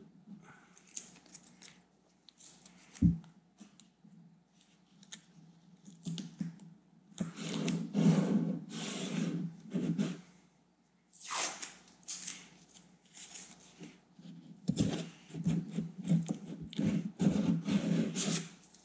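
Blue masking tape being pulled off its roll in several noisy peels and rubbed onto the plastic trim of a car's side mirror, the longest peel about halfway through and more near the end. A single short knock about three seconds in.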